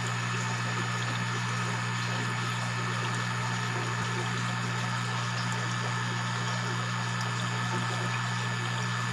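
A steady low machine hum with a constant watery hiss over it, as of an aquarium pump running.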